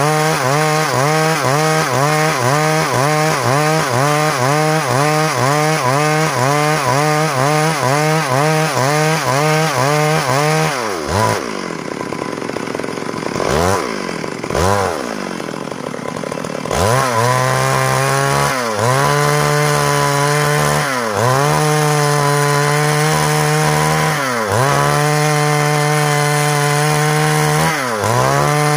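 Stihl MS 382 two-stroke chainsaw ripping lengthwise along a log under full throttle, its engine pitch dipping and recovering about twice a second as the chain bites. About ten seconds in it drops back to a low, quieter idle with a couple of short blips of the throttle. Then it returns to full-throttle cutting, now bogging down more deeply every two to three seconds.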